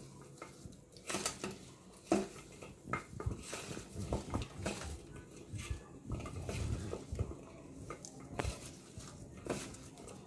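Hands tossing and mixing floured okra strips in a stainless steel bowl: irregular light clinks and scrapes against the metal, with soft rustling of the coated okra.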